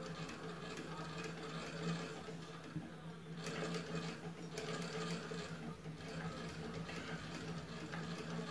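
Usha treadle sewing machine running steadily, its needle stitching through cotton cloth.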